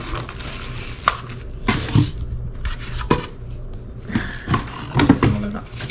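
Sewing-machine accessories in plastic wrap and the cardboard box being handled during unboxing: a soft rustle of plastic with about five scattered light clicks and knocks.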